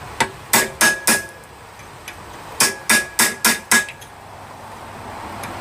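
A hand hammer strikes a chisel into the hot steel of a railroad spike with short, sharp blows, cutting in detail. There are two quick runs of blows, about four and then five, each with a faint metallic ring.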